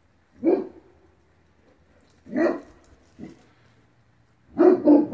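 A dog barking, seemingly at animals prowling in the dark: single barks about half a second in and about two and a half seconds in, a softer one shortly after, then three quick barks near the end.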